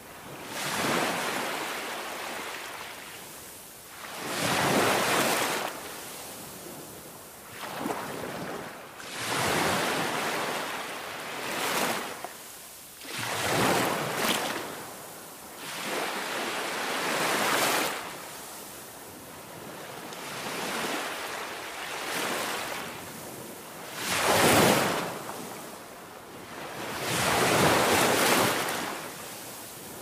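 Rough sea waves breaking against and washing over coastal rocks, coming in repeated surges of rushing water every two to four seconds.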